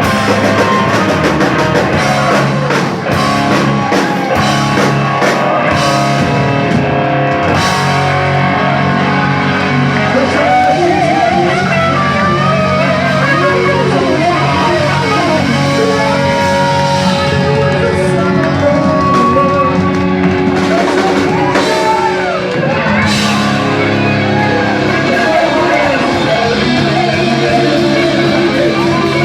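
Live rock band playing: guitar and drum kit in a rock song.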